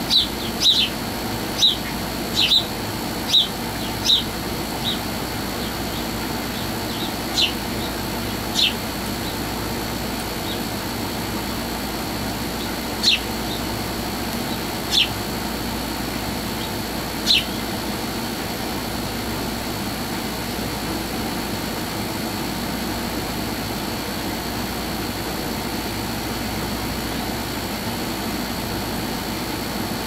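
Short, high bird chirps from small birds feeding at scattered seed: a quick run of them in the first few seconds, then a handful of single chirps spaced a few seconds apart until about halfway. Under them runs a steady mechanical hum.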